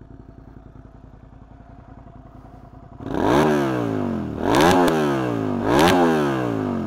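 Suzuki 650 motorcycle engine idling, then revved in three quick throttle blips, each rising in pitch and falling back toward idle.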